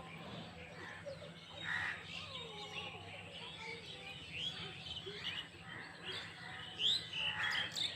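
Several small birds chirping throughout in a morning chorus, many short rising chirps overlapping, with a couple of harsher calls about two seconds in and near the end.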